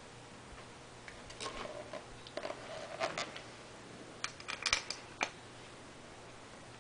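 Scattered light clicks and clinks of hand tools and metal parts as the thermostat housing is fastened down, with the sharpest clicks about three seconds in and a quick cluster near the five-second mark.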